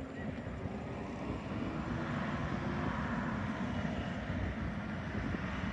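Garbage truck engine running as the truck drives off: a steady low drone whose pitch climbs a little over the first few seconds.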